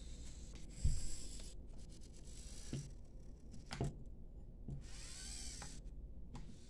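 Servo motors in the joints of a myCobot six-axis desktop robot arm running faintly as it plays back a recorded sequence of motions, with a few soft knocks as the joints move, the loudest about a second in. A little after five seconds a brief motor whine rises and falls.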